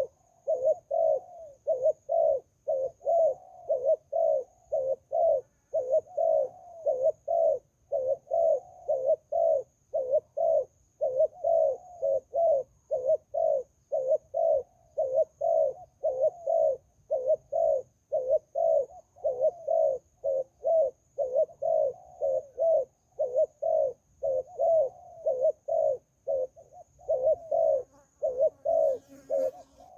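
Zebra dove cooing in a long, unbroken run of short, rhythmic coos at about two to three notes a second.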